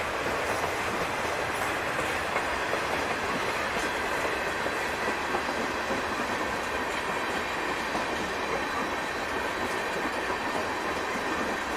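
Freight train's tank cars and boxcars rolling past, their steel wheels running over the rails in a steady noise.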